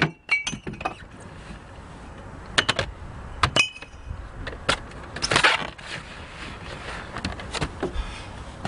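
Glass wine bottles dropping out of an open car door onto snow, with a series of knocks and clinks, a couple of them ringing briefly like glass. Later come scuffing and shuffling sounds as a person climbs out of the car.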